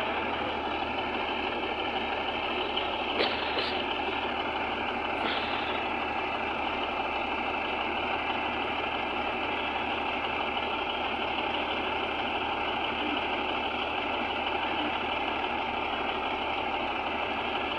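Heavy diesel machinery engine running steadily, with a few sharp metallic clicks about three to five seconds in.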